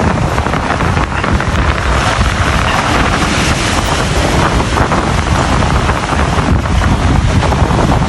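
Strong wind buffeting the microphone in steady gusts, over waves washing against the rock boulders of a seawall.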